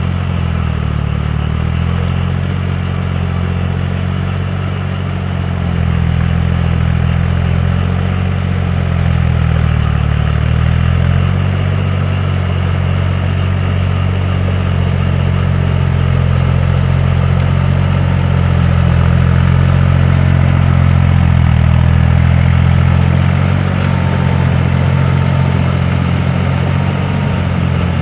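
Yanmar F215 compact tractor's diesel engine running steadily while it pulls a rotary tiller through a flooded paddy. The engine note dips and recovers briefly a few times, about a second in, near the middle and again about four-fifths of the way through.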